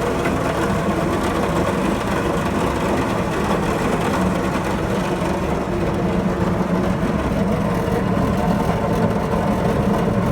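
A pump running steadily: a constant machine hum with several steady tones and no change in speed.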